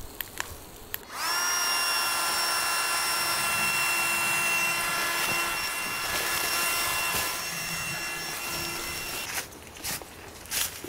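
A small electric motor spins up about a second in and runs with a steady whine for about eight seconds, then stops. Light knocks and handling noises come before and after it.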